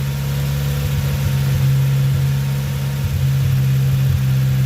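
Turbocharged 1993 Honda Civic EG's four-cylinder engine idling high, at about 2,500 rpm, with a steady drone. The high, unsettled idle is what the owner takes for a failing idle air control valve.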